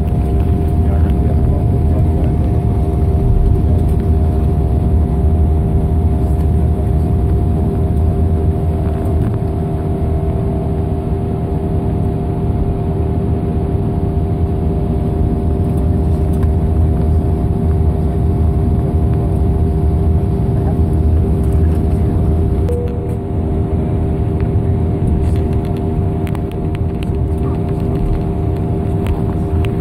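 Turboprop airliner's engines and propellers running at low power, heard from inside the cabin: a steady drone with a constant hum that doesn't change in pitch.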